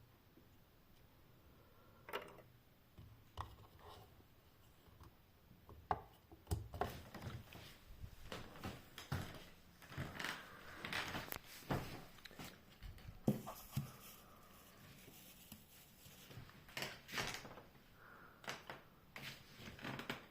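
Irregular quiet clicks, knocks and rubbing sounds, a few at first and thicker from about six seconds in.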